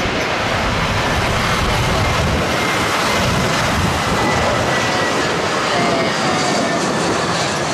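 Super Air Jet Airbus A320's jet engines on landing approach: a loud, steady rushing noise with a faint high whine on top.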